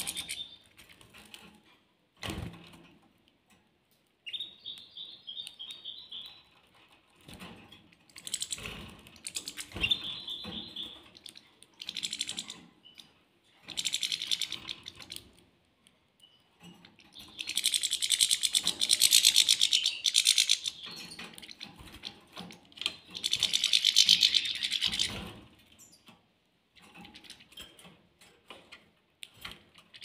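Small caged finches, canaries and European goldfinches, chirping in short high calls, then twice breaking into loud bursts of fast twittering song a few seconds long, with scattered light clicks.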